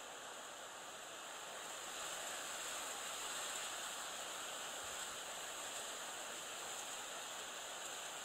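Steady, even hiss of lakeside ambience with no distinct events. It grows slightly louder about two seconds in.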